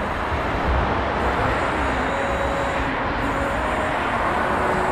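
Steady road traffic noise: a continuous hiss and low rumble of passing vehicles.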